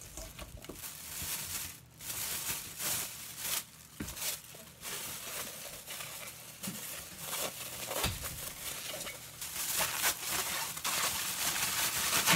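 Thin plastic bag crinkling and rustling as salted daikon radish cubes are tipped into it from a stainless steel bowl and the filled bag is worked by hand, with a couple of short knocks along the way. The rustling grows louder near the end.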